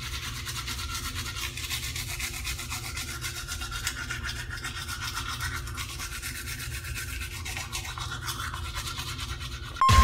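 Manual toothbrush scrubbing teeth in quick back-and-forth strokes over a steady low hum. A short beep sounds near the end.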